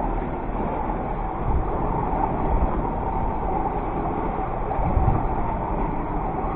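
Fishing boat's engine running steadily at trolling speed, a low rumble under an even rush of wind and water.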